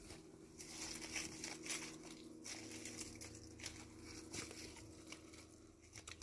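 Rustling and crinkling of something being handled, an irregular string of short crackles, over a low steady hum.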